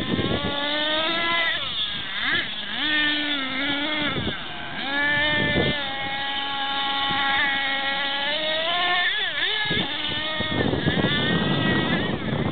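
Small nitro glow-fuel engine of a Thunder Tiger MTA-4 RC monster truck revving up and down with the throttle, a whining note whose pitch rises and falls again and again. Near the end the whine gives way to a rough rushing noise.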